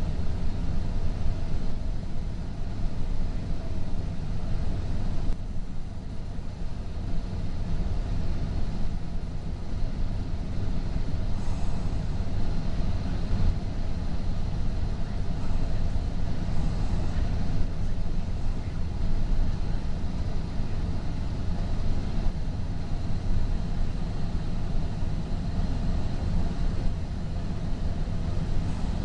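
Steady low rumble inside a moving Metrolink commuter train: wheels running on the rails at speed.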